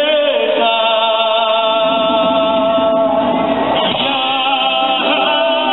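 Male singer singing live with instrumental backing, holding one long steady note for about three seconds, then starting a new phrase near the end.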